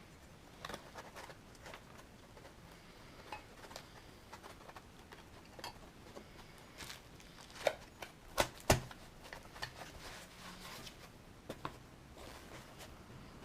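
Unboxing and handling noises: scattered light clicks and rustles of packaging and parts being moved, with three sharper knocks a little past the middle as objects are set down.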